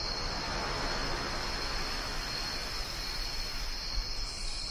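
Steady background hiss with a continuous high-pitched buzz running under it.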